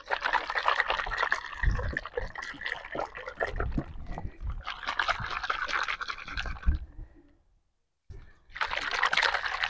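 Liquid sloshing and splashing inside a plastic sports-drink bottle that is being shaken hard by hand to mix a homemade tyre shine. The shaking stops about seven seconds in and starts again shortly before the end.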